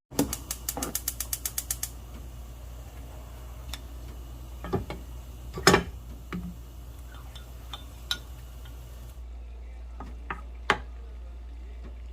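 A rapid run of about a dozen sharp clicks lasting under two seconds, followed by scattered knocks and clinks of kitchen utensils being handled.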